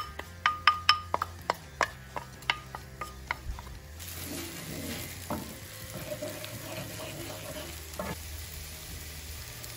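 Diced red onion frying in olive oil in a nonstick pan, stirred with a wooden spoon. About a dozen sharp wooden-spoon taps come in the first few seconds, then a steady sizzle sets in about four seconds in, with the odd knock of the spoon.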